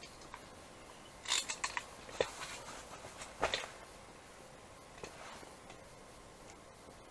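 Scattered clicks and light knocks from handling a small ice-fishing rod and reel, in a quick cluster about a second in, a sharp click a little later and another cluster around three and a half seconds in, over a faint steady hiss.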